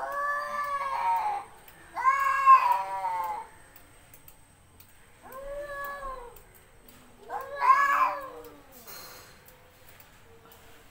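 A cat giving four long, drawn-out meows, each rising and then falling in pitch, with pauses of about a second between them.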